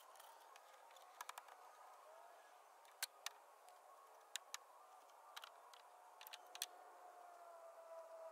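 Near silence, with a few faint, scattered clicks and a faint, thin wavering tone in the second half.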